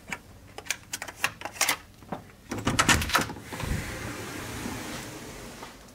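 Electronic key-card lock on a hotel room door being worked: a run of small clicks and taps, then a louder clatter and thud about two and a half seconds in as the handle is pressed and the lock releases, followed by a steady rushing noise as the door opens.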